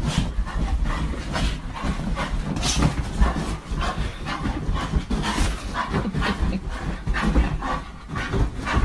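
A dog making many short sounds in quick succession over a heavy low rumble.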